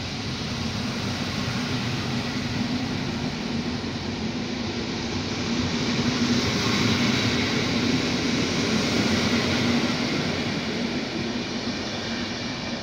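PKP Intercity passenger coaches rolling past on the rails: a steady rumble of wheels on track that swells about halfway through and eases off near the end.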